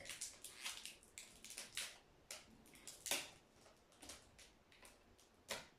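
Thin protective plastic film being peeled off a new smartphone, making irregular crinkles and crackles. The loudest comes about three seconds in, with another near the end.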